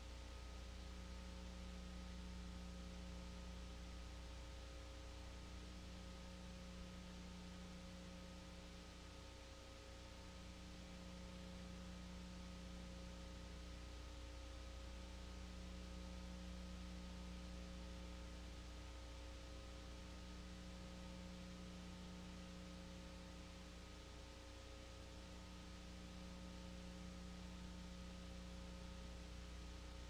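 Faint dead air carrying a steady electrical mains hum and a few thin steady tones. A low buzz in it drops out briefly about every five seconds.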